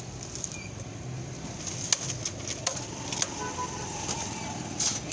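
Street ambience: a steady hum of traffic with a few sharp clicks scattered through it.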